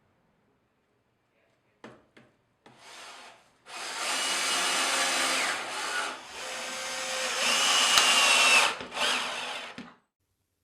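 Two light clicks, then a power drill running in several bursts of a few seconds each, with a thin motor whine through the noise.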